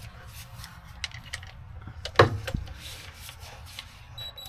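Hand tools being handled: scattered light clicks and clinks, with one sharp knock a little over two seconds in, over a low steady rumble.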